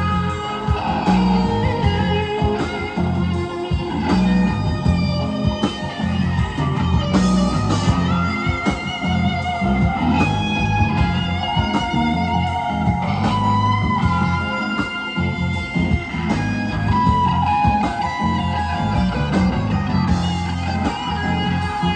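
Live rock band playing an instrumental passage: electric guitar lines over bass guitar, drums and keyboard, with no singing.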